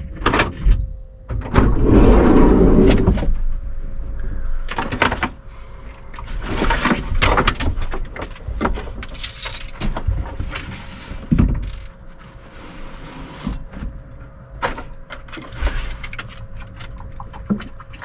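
Irregular knocks, bumps and rustling from someone working in a van's cargo area as a dog is brought aboard, with a louder, longer rumble about two seconds in. A faint steady hum runs underneath.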